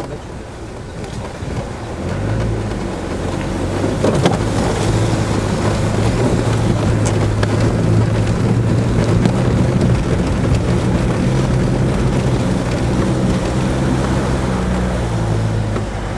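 Land Rover 4x4 engine pulling steadily through deep flood water, its note rising about two seconds in and growing louder about four seconds in, with water surging and sloshing against the bodywork.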